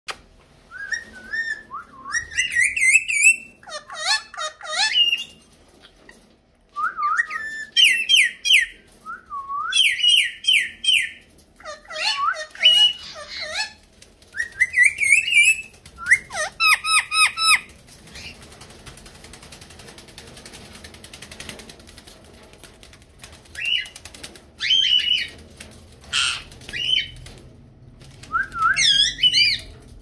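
Caged ring-necked parakeets calling: shrill squawks, many rising in pitch, repeated in quick runs, with a quieter spell of a few seconds past the middle.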